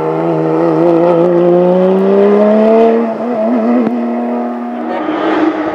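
Porsche 997 GT3 Cup's flat-six racing engine pulling hard under full throttle, its pitch climbing for about three seconds. The climb breaks near three seconds, at a gear change, and the engine runs on at a steadier pitch.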